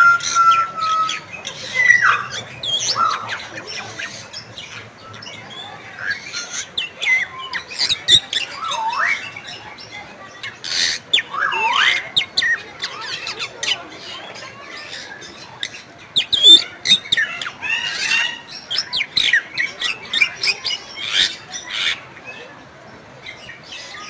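Bali myna (Bali starling) calling in a long, varied run: clear whistles, notes that swoop down and back up, and short sharp clicking notes, with a quieter lull about midway.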